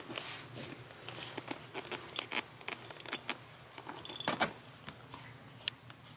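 Soft rustling and scattered small clicks of close handling around a fleece blanket, with a louder burst of rustling about four seconds in.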